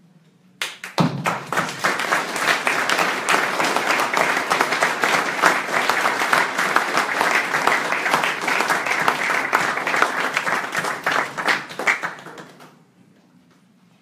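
A small seated audience applauding, starting about half a second in and dying away about a second and a half before the end.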